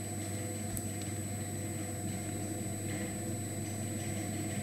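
Steady background hum and hiss of the recording's room tone: a constant low hum with a faint high whine, unchanging throughout.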